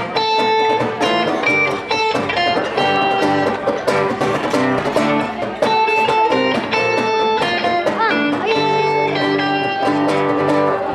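Guitar-led music with picked notes and chords over a steady rhythm, with one bent note about eight seconds in.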